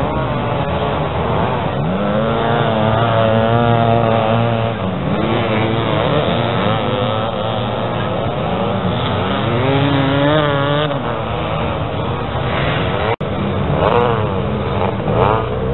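Several vintage motocross motorcycles racing through deep sand, their engines revving up and falling back and overlapping one another. The sound breaks off for an instant about thirteen seconds in.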